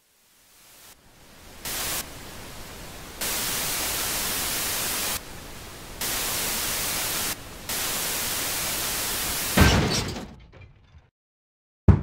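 Television static hiss that switches abruptly between louder and softer stretches every second or two. A heavy thump cuts in about ten seconds in and the hiss fades away, then one sharp click comes near the end.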